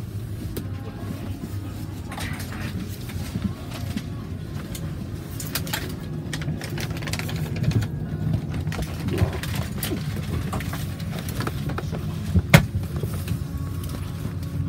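Steady low hum inside a parked airliner's cabin, with clothing rustle and small knocks as a passenger takes a seat, and one sharp knock about twelve seconds in.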